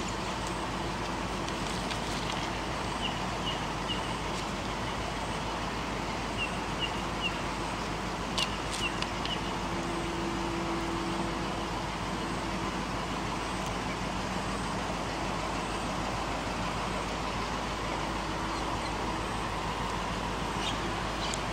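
Steady hum of distant road traffic, with a few faint, short, high bird chirps in quick runs of three or four during the first half.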